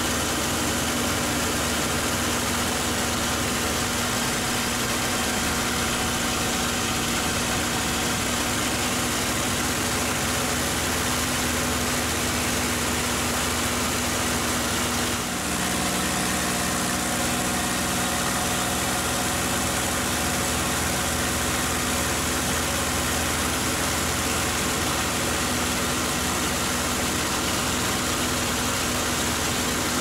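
Packard Merlin V-1650-7 V12 engine and propeller of a P-51D Mustang running steadily at flight power, heard from inside the cockpit in aerobatic flight. About halfway through there is a brief dip in level, after which the engine note shifts slightly.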